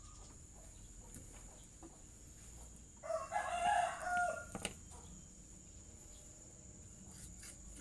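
A rooster crows once, about three seconds in, a call lasting about a second and a half; a single sharp knock follows just after it.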